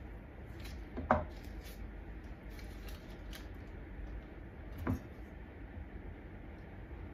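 Knife cutting a hot dog sausage on a cutting board: the blade knocks on the board twice, about a second in and again about four seconds later, with a few faint clicks in between over a low steady hum.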